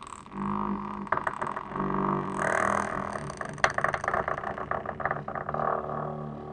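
Door hinge creaking in a long, slow, drawn-out creak made of rapid ticks with a wavering pitch, loudest about halfway through.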